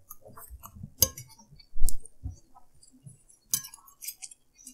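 Metal forks clinking against dinner plates, a few sharp clinks, amid close-miked sounds of noodles being slurped and chewed.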